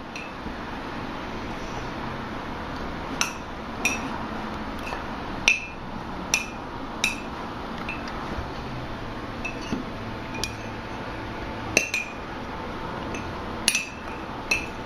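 A spoon stirring dry flour, sugar and cocoa in a ceramic coffee mug, clinking against the mug's side at irregular moments, about a dozen times.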